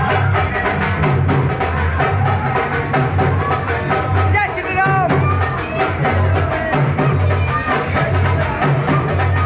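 Loud music with fast drumming, about five or six strokes a second, over a deep pulsing bass, with a melody line above it.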